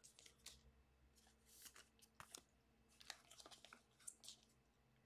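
Faint scattered clicks and brief scrapes of trading cards being picked up off a table mat and gathered into a stack.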